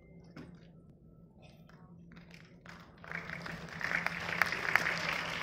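Audience applauding in a large hall, starting about three seconds in and building up to steady clapping.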